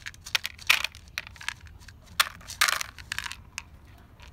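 Dry cat kibble poured from a plastic cup into a plastic feeding tray: pellets rattling and clicking onto the tray, in two main pours, about a second and about two and a half seconds in.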